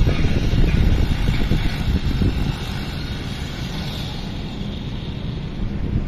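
Wind buffeting the microphone: a gusty low rumble, loudest in the first two seconds and then easing off.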